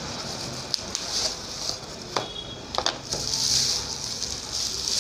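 Unboxing noises: a speaker being drawn out of its cardboard box in crinkly plastic wrapping, with a few sharp clicks and taps and a crinkling rustle of plastic that is loudest about three to four and a half seconds in.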